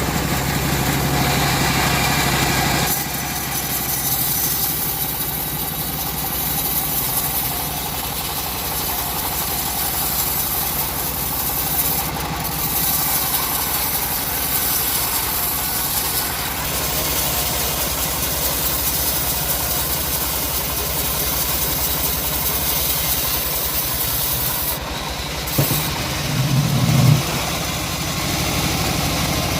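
Engine-driven band saw mill running steadily. Its sound changes about three seconds in, and there is a brief louder surge near the end.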